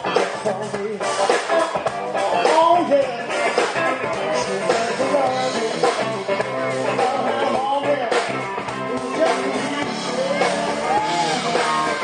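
Live band playing rock music: electric guitar and bass guitar, with a man singing into the microphone.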